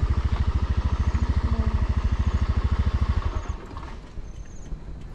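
Motorbike engine running with a steady, fast low putter, dropping away about three and a half seconds in.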